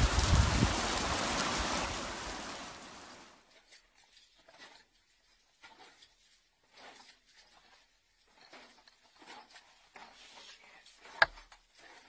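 Heavy rain falling steadily, fading out over the first three seconds or so. After that there are only faint scattered short noises, and one sharp click about eleven seconds in.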